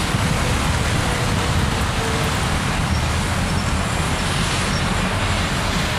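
Steady city street traffic noise from cars around a busy square, with a strong low rumble.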